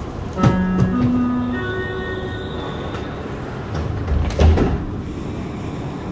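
Montreal Metro train's door-closing chime: three notes stepping upward, followed about two seconds later by a heavy thud as the sliding doors shut.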